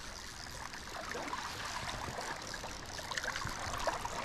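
Shallow river water flowing and trickling close by, a steady babble with a few faint small splashes in the second half.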